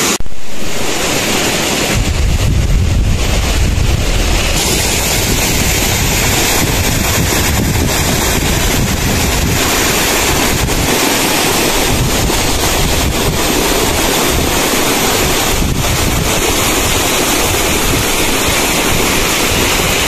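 Waterfall and the cascading stream below it rushing steadily, a dense hiss of falling water. Wind buffets the microphone in irregular low rumbles, strongest about two seconds in.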